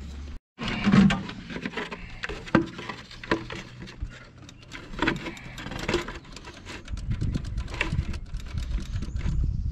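Irregular metallic clicks and taps from hand work at a tractor's diesel fuel filter, with a ring spanner and a sheet-metal drip tray being handled. A low rumble builds about seven seconds in.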